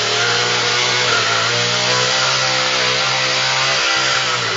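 Chainsaw engine running at a steady high speed, easing off slightly near the end.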